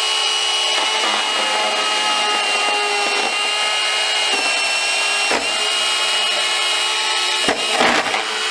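Bosch EasyCut 12 cordless nano-blade saw running at speed and cutting through hard plastic, a steady high whine. It dips briefly about five seconds in and turns rougher and more uneven near the end.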